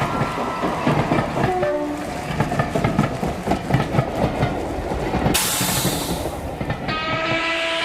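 Underground train sound effect opening the song: a train rattling along the rails, then a sudden loud hiss about five seconds in, then steady tones with a rising sweep that lead into the music.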